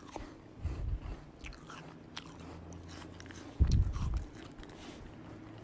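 Kitten mouthing and nibbling at a person's leg, close to the microphone: small clicks and rustles, with two dull thumps, about half a second in and about three and a half seconds in.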